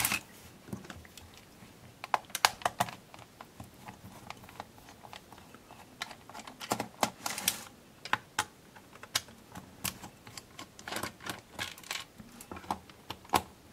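Small screwdriver working the screws out of a Casio VL-1's plastic case: scattered, irregular clicks and scrapes of metal on plastic as the case is handled.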